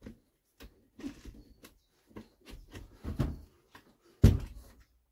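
Irregular knocks and clunks from a hole saw being worked at to free the plug of caravan floor jammed inside it, with the sharpest knock about four seconds in.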